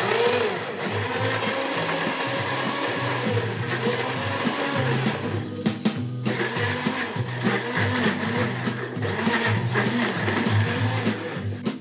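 Countertop blender running steadily, blending oats, eggs, dates and banana into a thick batter while the tamper pushes the mix down onto the blades, over background music.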